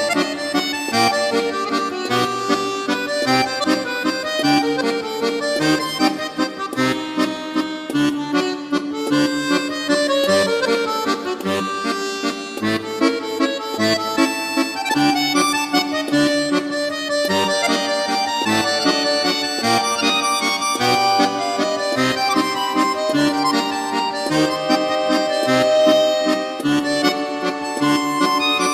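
Instrumental background music: a melody over a steadily repeating bass beat.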